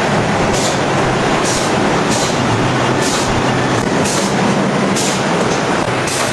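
Cookie-production machinery running steadily, with a short hiss repeating about once a second in an even rhythm.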